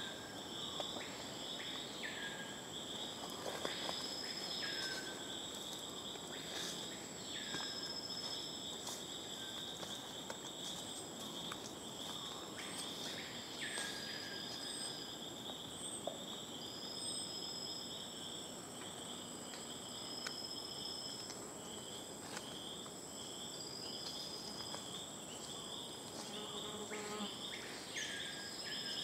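Rainforest insect chorus: a continuous buzzing trill with a thin, steady high whine above it. Short high notes repeat every couple of seconds, and now and then calls slide downward in pitch.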